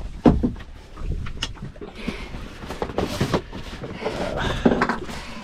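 Scattered knocks and thumps on a boat deck while a freshly landed fish is handled and a measuring mat is laid out, over wind noise on the microphone.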